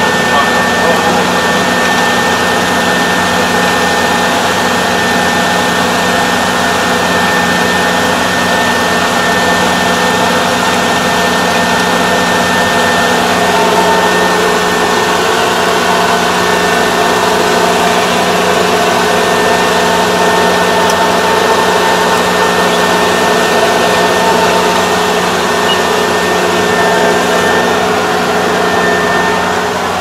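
Kubota ER470 four-row combine harvester running steadily while harvesting rice, heard from inside the operator's cab: a constant engine-and-machinery drone with a steady high whine over it.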